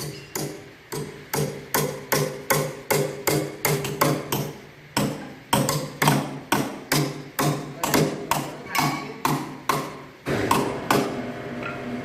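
Repeated hammer blows, about three a second, each with a short ringing tone. There is a brief pause near the middle, and the blows give way to a denser continuous sound about ten seconds in.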